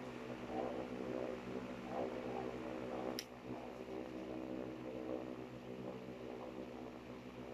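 A steady low mechanical hum, with soft handling sounds and one sharp click about three seconds in as plastic makeup compacts are handled on a table.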